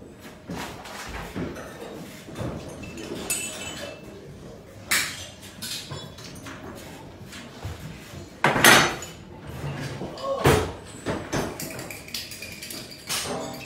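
Irregular metallic knocks and clatter of tools and copper pipe being handled, with two louder bangs about two-thirds of the way through.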